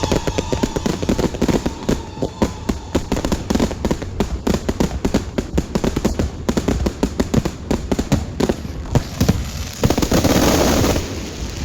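Aerial fireworks going off in a dense, rapid crackle of many small bangs, with a louder, longer rushing burst about ten seconds in.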